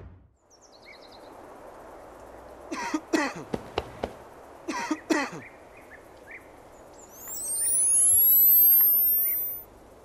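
A few short coughing voice sounds, then a loud electronic sweep sound effect of rising and falling whistling tones lasting about two and a half seconds that cuts off sharply, over faint outdoor background.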